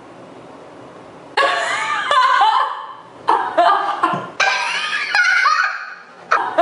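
A woman laughing hard in several loud, high-pitched bursts, starting about a second and a half in after a quiet pause.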